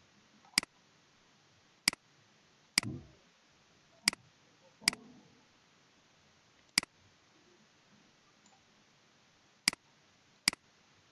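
Computer mouse button clicking: about eight single sharp clicks at uneven intervals, two of them with a short dull thud.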